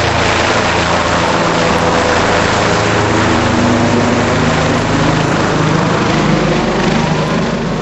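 Helicopter flying overhead: a loud, steady engine and rotor noise with a slowly shifting hum.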